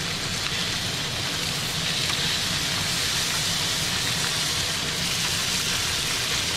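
Fluke fillets sizzling steadily in clarified butter in a hot frying pan, searing after being flipped.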